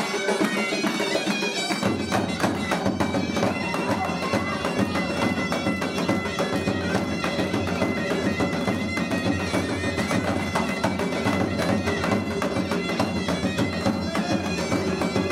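Live Armenian folk dance music: a shrill reed wind instrument playing the melody over a dhol drum beat, which comes in about two seconds in.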